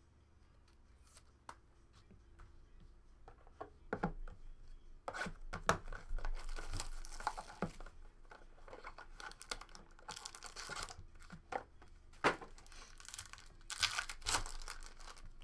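A trading-card box being opened by hand. After a quiet start there are light knocks of cardboard being handled, then long spells of wrapper tearing and crinkling, and a foil card pack is crinkled near the end.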